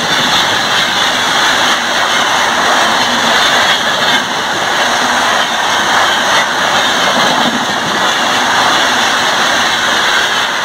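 An express train's red Indian Railways LHB coaches passing at speed: a loud, steady rolling noise of steel wheels on rail.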